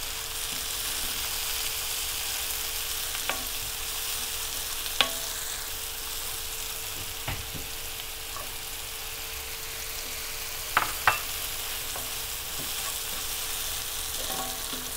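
Onions and freshly added chopped tomato sizzling steadily in hot oil in a frying pan, with a few sharp clinks of a spoon against the pan as it is stirred, the loudest a close pair about eleven seconds in.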